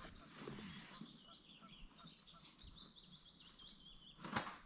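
A bird calling outdoors: a rapid run of short, high notes lasting about three seconds. A brief rustling noise, the loudest sound, comes near the end.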